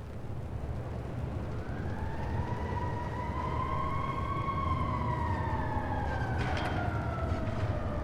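Police car passing with its siren wailing over the rumble of the engine. The siren's pitch climbs slowly for the first few seconds and then falls away.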